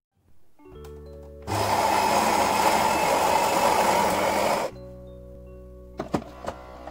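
Philips Saeco Minuto bean-to-cup espresso machine starting a coffee: a low motor hum, then the built-in grinder grinding beans loudly for about three seconds. A lower hum follows as the brewing cycle goes on, with a few sharp clicks near the end.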